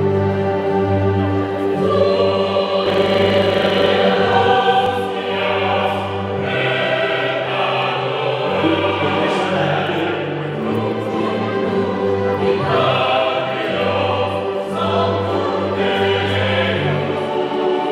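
Choir singing, with held low instrumental notes under the voices.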